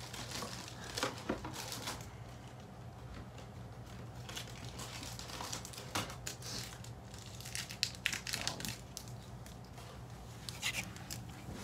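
Intermittent crinkling and crackling as trading cards and their foil and plastic packaging are handled, coming in scattered short clusters over a faint steady low hum.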